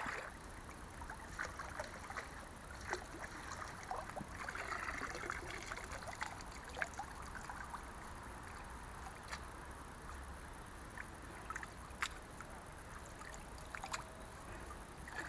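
Shallow stream water sloshing and trickling as a man wading in it works a hand net through the water, with faint scattered taps.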